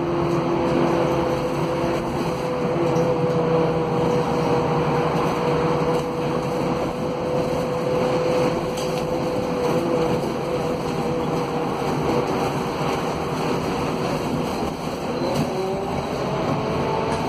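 Scania K280 city bus with a DC09 five-cylinder diesel, heard from inside the passenger cabin while driving: a steady engine and road hum with a held whine. About 15 seconds in, the whine and engine note rise together in pitch as the bus speeds up.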